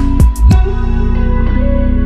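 Background instrumental music with guitar over a steady low bass, with two sharp beats in the first half second.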